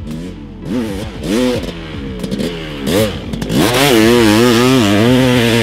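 Honda CR500 two-stroke single-cylinder engine, breathing through a dual FMF exhaust, revving up and down several times. It then holds at high revs, louder, from a little past halfway.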